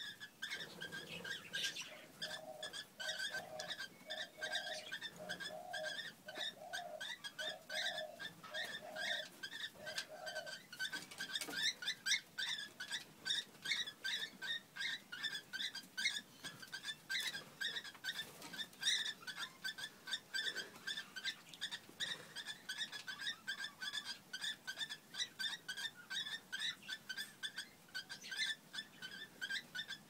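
Cockatiels mating: a fast, unbroken run of short high chirps, several a second, the chattering calls of the pair during copulation. For the first ten seconds or so a lower note also repeats about once a second.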